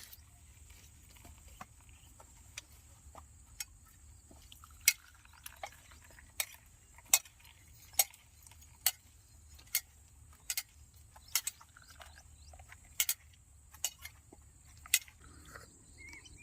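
A series of sharp, light clicking taps, roughly one a second and a little irregular, over a faint steady background.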